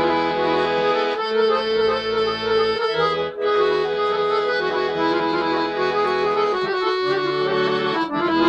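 Red Paolo Soprani piano accordion playing a traditional tune: a melody on the keyboard over sustained bass notes and chords that change every second or two, with short breaks about three seconds in and near the end.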